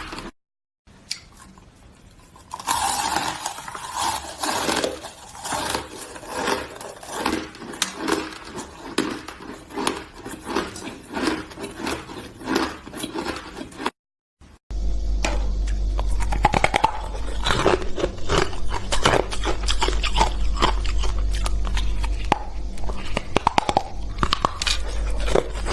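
Hard, crunchy shaved ice being bitten and chewed close to the microphone: a dense run of crisp crunches and scrapes. The crunching breaks off briefly twice, and a steady low hum runs under it from about halfway.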